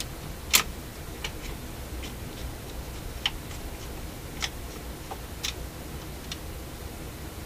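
Scattered sharp clicks and ticks from the Dual 1228 turntable's changer mechanism as its levers and cam are worked by hand. The sharpest click is about half a second in, and the rest come irregularly, over a low steady hum.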